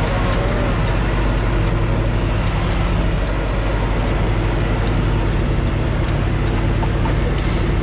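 Semi-truck's diesel engine running at low speed, heard from inside the cab as the truck maneuvers slowly. A short hiss comes near the end.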